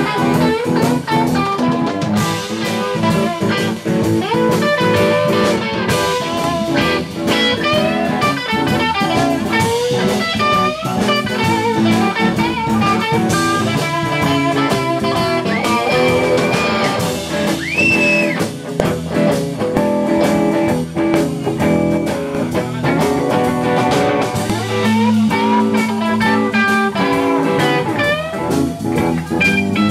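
Live blues band playing, with electric guitars over a drum kit; a lead guitar plays bent notes, holding two long high notes about halfway through.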